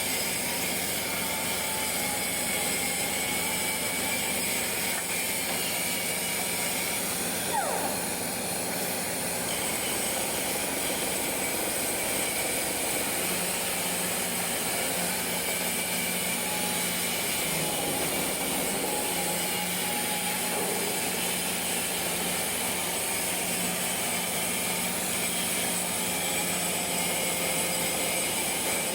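Steady industrial noise: an even hiss over a constant machine hum, with a faint falling whine about a third of the way in.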